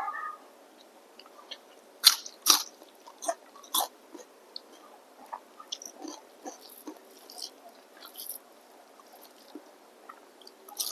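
Close-up eating sounds: biting and chewing food, with several sharp crunches between about two and four seconds in and softer chewing after.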